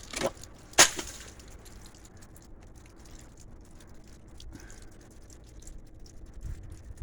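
Icicles being knocked down: two sharp cracks within the first second, the second one louder, as the ice breaks and hits. Then only a faint background hiss.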